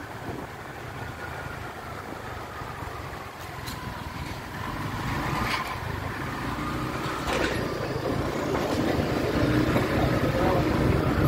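Motorcycle engine running with road and wind noise while riding pillion through city traffic. A few brief sharp sounds come in the middle, and the sound grows louder over the last few seconds.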